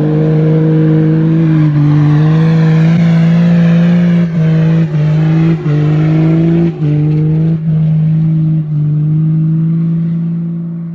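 Dodge Ram's Cummins straight-six diesel held at high revs, its note steady and loud, cutting out briefly about six times in quick succession before easing off near the end.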